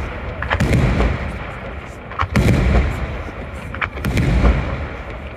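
Aerial firework shells bursting in a daytime smoke display: three loud bangs roughly a second and a half apart, each followed by a rolling low rumble.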